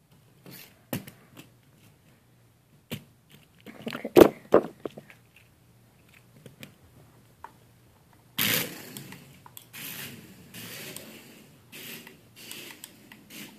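Small RC car knocking and scraping on a wooden floor right by the microphone: scattered clicks and knocks, the loudest about four seconds in, then from about eight seconds a longer stretch of rough scraping and rattling.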